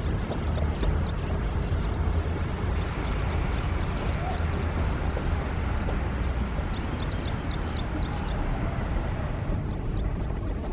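Intercity express passenger coaches rolling past with a steady low rumble of wheels on the track. Many short, high chirps of small birds sound above it in two spells.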